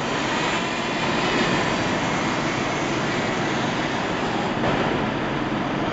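DJI Mini 2 quadcopter's propellers whirring steadily as the drone flies low and close, getting a little louder in the first second or so as it comes back in toward the pilot to land.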